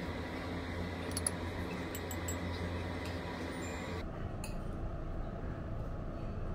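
Steady low hum of room noise with a few faint clinks about a second in. The high hiss drops away suddenly about four seconds in.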